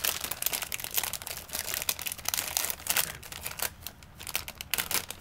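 Plastic snack bag crinkling as it is handled to get at the corn sticks: a rapid run of crackles that thins out in the second half.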